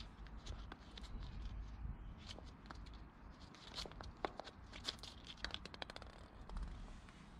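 Scattered scratches and clicks, busiest in the middle, from a cat clawing and biting a small plastic toy ball, over a low steady rumble.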